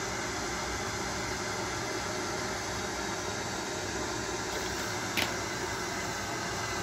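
Steady room hiss with one short, sharp click about five seconds in, from the plastic DVD case being handled.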